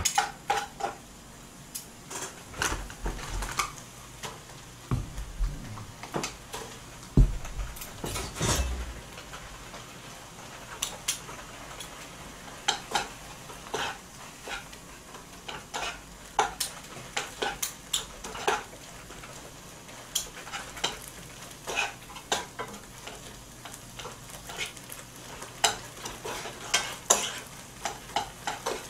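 Rice and potato-stew leftovers being stir-fried in a wok on a portable gas burner: utensils scraping and clicking irregularly against the pan over a faint sizzle. A few dull thumps come in the first nine seconds.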